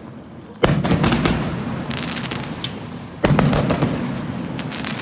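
Fireworks going off: a loud bang about half a second in and another a little after three seconds, each followed by a rapid crackle of smaller pops that fades away.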